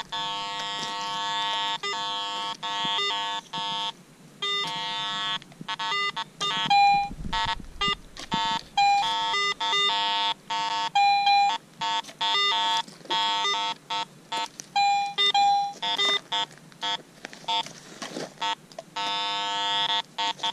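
Garrett AT Pro metal detector with iron audio switched on, chattering almost without a break in buzzy low tones broken by a few short higher beeps as the coil sweeps over ground thick with iron.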